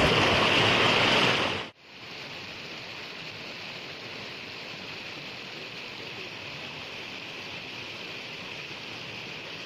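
Steady rush of a small waterfall pouring into a shallow stream pool. It is loud for the first second and a half or so, then drops abruptly to a lower, even level.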